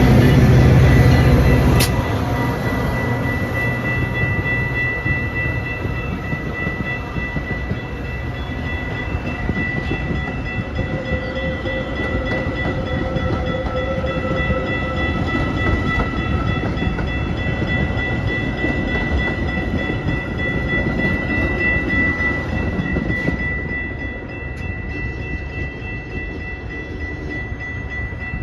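A Metra diesel-hauled commuter train running past, loudest in the first two seconds. After that comes a steady rumble of rolling cars with thin high-pitched tones held over it, fading somewhat near the end.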